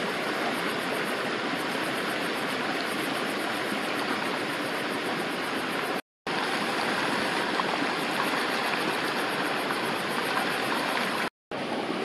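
A stream running steadily, a constant rushing of water. It drops out twice for a moment, once about halfway through and once near the end.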